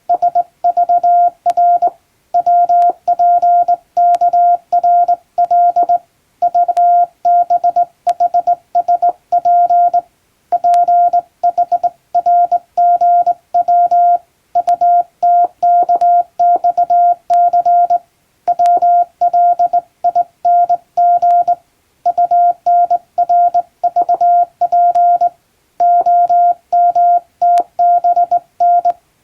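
Morse code sent by hand on a straight key: a single steady tone switched on and off in dots and dashes at a brisk pace. The characters run in groups, with a short pause between words every few seconds.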